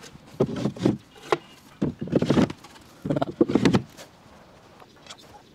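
Wooden drawers sliding into the openings of a solid-wood cabinet and knocking home, with wood scraping on wood in three short bursts and a sharp click between the first two.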